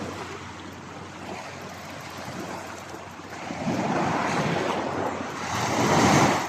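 Sea waves washing ashore, swelling twice in the second half, the later swell the louder.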